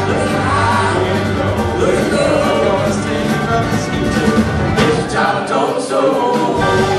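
Live band with guitar and banjo playing, with a voice singing over it. The bass drops out for about a second near the end.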